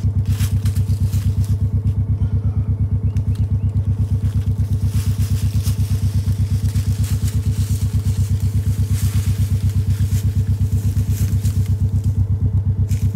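A vehicle engine idling close by with a steady, rapid throb of about six pulses a second. Over it comes the scraping and crackling of a dead tree branch being dragged across dry grass and leaves.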